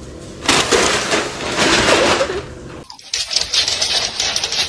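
Angry cat hissing for about two seconds, with a faint growl under it. A different steady hiss-like noise follows from about three seconds in.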